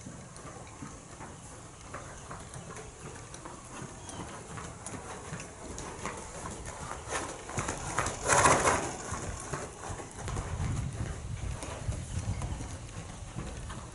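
Horse's hoofbeats on the sandy footing of a covered arena, a soft rhythmic thudding that gets heavier from about ten seconds in, with a brief loud hissing rush of noise about eight seconds in.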